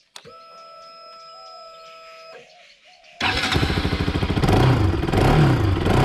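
Bajaj Pulsar RS200 motorcycle being started: a quiet, steady electric whine for about two seconds, then the single-cylinder engine catches suddenly about three seconds in and is revved up and down a few times.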